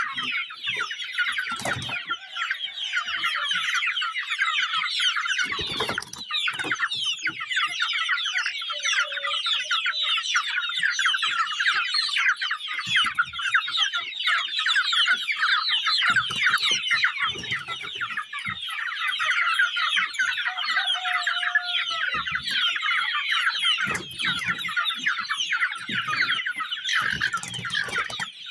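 A large flock of young Sasso chickens peeping and cheeping continuously, many short falling chirps overlapping, with a few dull low thumps now and then.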